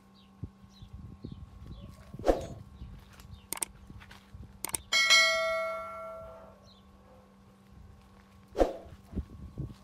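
A rusty steel knife blade struck once, ringing out in a bright metallic clang that fades over about a second and a half. Several sharp knocks and taps come before it, and another knock near the end.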